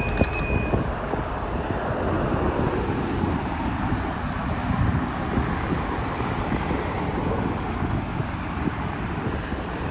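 Steady jet airliner engine noise during a landing, with wind buffeting the microphone. A short high ding dies away within the first second.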